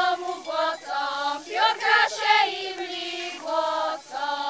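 A group of voices singing a folk song together, in phrases of long drawn-out notes that slide in pitch, with short breaks between phrases.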